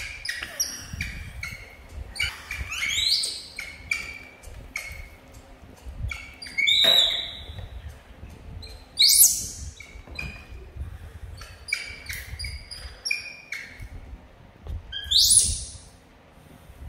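A baby macaque calling over and over: short high-pitched chirps and squeals, with three louder shrieks that sweep sharply up in pitch, about three, nine and fifteen seconds in.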